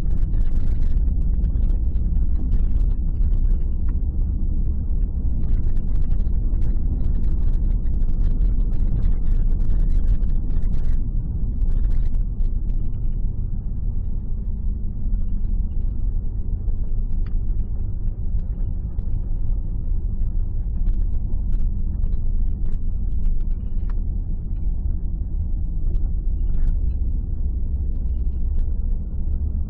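Steady low rumble of a car's engine and tyres on the road, heard from inside the cabin while driving, with scattered light ticks in the first half.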